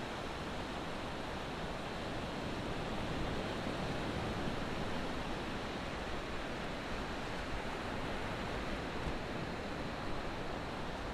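Ocean surf breaking and washing on the beach: a steady, unbroken rush of waves.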